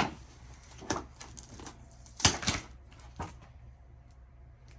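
Toy packaging being handled: a few sharp clicks and taps of cardboard and plastic. The loudest comes right at the start, with a cluster about two seconds in.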